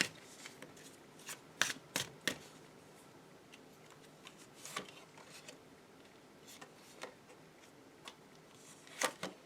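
Tarot cards being handled and laid down: scattered sharp snaps and taps. A cluster of them comes about two seconds in, and another just before the end.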